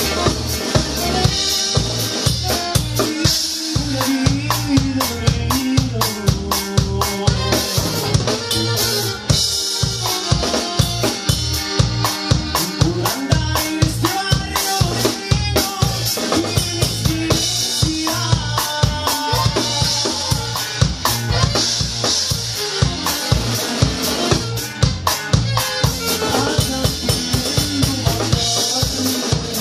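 Drum kit played in a live band: kick drum, snare and Zildjian cymbals keeping a steady, busy beat, with pitched melodic instruments playing along.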